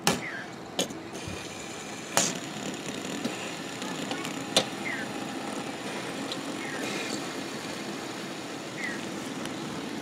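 Several pop-it fidget spinners whirring together on a wooden tabletop, a steady whir with a few sharp clicks as fingers flick and knock them into spin.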